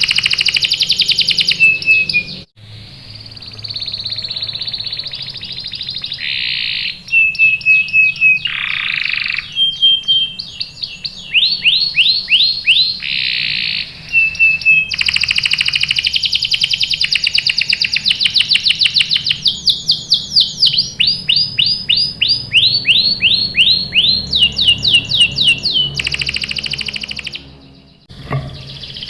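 Canary singing a long, loud song of rapid trills, each phrase a quick run of repeated notes at its own pitch, switching to a new phrase every second or two. The song breaks off briefly about two and a half seconds in and again near the end.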